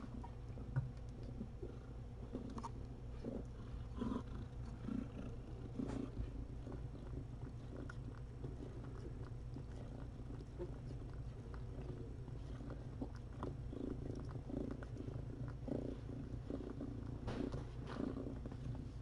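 Domestic cat purring steadily close to the microphone, with a few faint soft rustles and taps.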